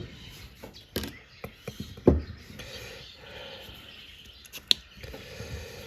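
A seized Sidchrome ratchet handle being worked by hand: a few scattered clicks and knocks, one about a second in, a cluster around two seconds, and a sharp one near the end.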